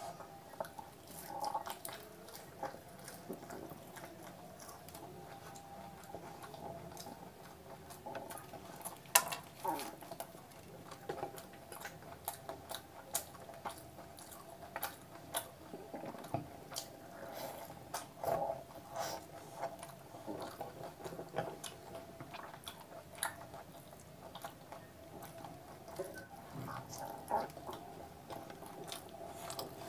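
Close-miked eating: wet chewing and mouth smacks on fried puri bread and curry, with fingers squelching in curry gravy. Many short irregular clicks and smacks, one louder about nine seconds in, over a faint steady hum.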